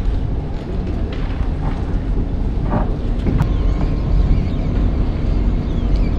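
A steady low rumble, with a few faint clicks and knocks, the clearest a little over three seconds in.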